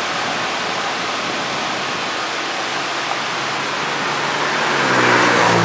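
Steady rush of turbulent river water over a low boulder dam. From about halfway a car's engine hum grows, and the car passes close near the end, the loudest moment.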